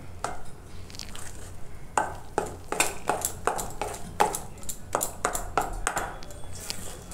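Metal spoon beating thick gram-flour batter in a stainless steel bowl, clinking and scraping against the bowl's side in quick strokes, a few at first and then about two to three a second from about two seconds in.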